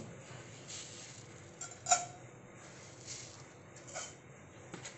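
A metal spoon tipping sugar into an empty aluminium saucepan for caramel. There are a few faint taps and one light metallic clink with a brief ring about two seconds in.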